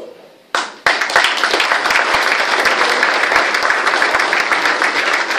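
Audience applauding: the clapping breaks out about a second in and keeps going.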